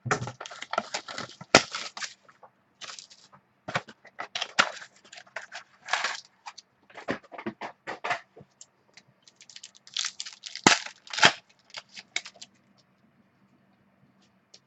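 Trading card pack being torn open and its cards handled: an irregular run of sharp crinkles, snaps and clicks from the wrapper and card stock, stopping about two seconds before the end.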